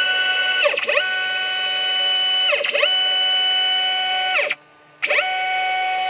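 Stepper motors of a homemade CNC router whining as the axes move back and forth at steady speed. The whine's pitch sweeps down and back up each time an axis slows, reverses and speeds up again, about every two seconds, with a brief stop about four and a half seconds in.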